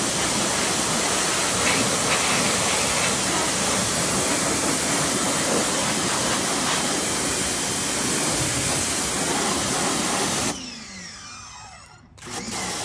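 Pressure washer jet spraying a motorcycle's rear wheel and exhaust, a loud steady hiss of water under pressure. About ten seconds in the spray cuts off and the motor slows with a falling whine, then the spray starts again just before the end.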